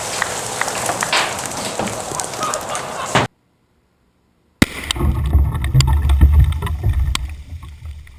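Tannerite blast from a buried PVC pipe: a sudden sharp crack and then a heavy low rumble lasting a couple of seconds that fades out. Before it, a loud hiss with scattered clicks cuts off abruptly into silence.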